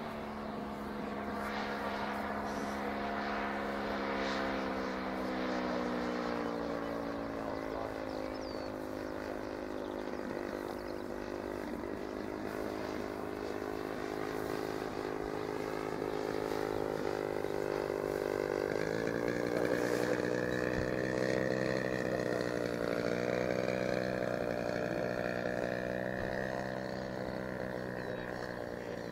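Distant drone of a 1/3-scale model Cub's 100 cc engine and propeller in flight. The pitch drops about a quarter of the way in, steps up about two-thirds through, and falls away again near the end.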